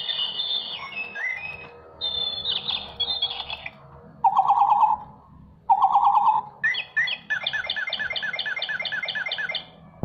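Electronic toy bird in a plastic cage playing recorded birdsong: high warbling chirps, then two short, loud buzzy trills a little after the midpoint, then a fast run of repeated chirps, about six a second, that stops just before the end.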